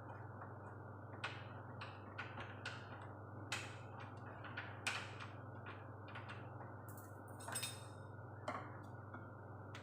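Scattered light clicks and knocks as washing machine parts are handled and fitted back in place, over a steady low hum.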